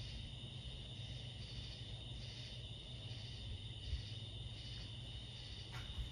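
Hampton Bay Roanoke ceiling fan running slowly on a failing capacitor: a steady low motor hum, with a steady high whine and a soft high pulse about every 0.8 seconds. A faint click near the end.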